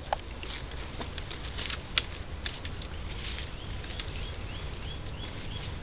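A bird calling a quick run of short rising chirps, about three a second, over a steady low rumble and a few sharp clicks, the loudest about two seconds in.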